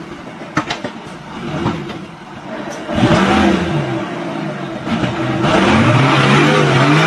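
An engine running and revving, its pitch rising and falling, with a few sharp knocks in the first two seconds.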